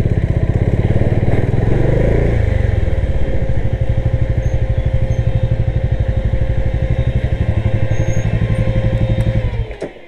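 Single-cylinder motorcycle engine running at low revs as the bike rolls slowly, then switched off near the end, the sound cutting out suddenly.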